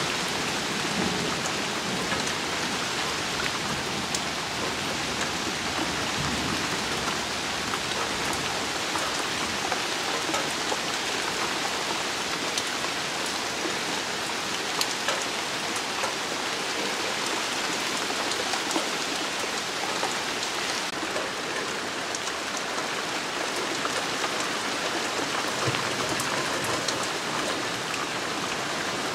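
Steady rain falling on a pond's surface and on garden foliage: a dense, even patter with small sharp drop ticks. The hiss thins slightly a little past two-thirds of the way through.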